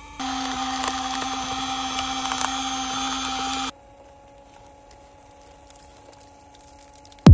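Small electric gear motors of a cardboard model garbage truck: a steady, fairly loud motor whine as the lifting arm raises the bin, cutting off suddenly about three and a half seconds in, followed by a much fainter steady motor whine as the body tips up to dump.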